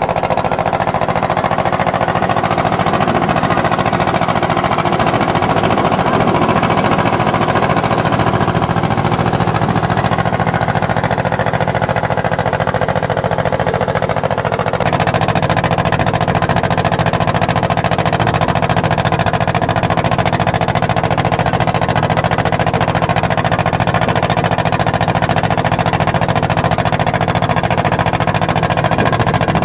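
Boat engine running steadily under way, its tone changing slightly about halfway through.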